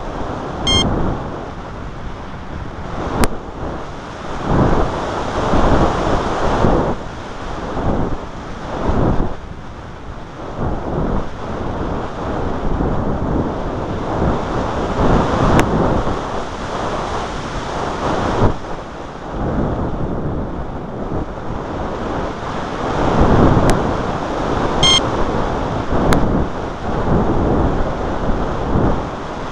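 Wind buffeting the microphone in uneven gusts, a rushing rumble that swells and fades every second or so. Two brief high electronic chirps sound, one just after the start and one near the end.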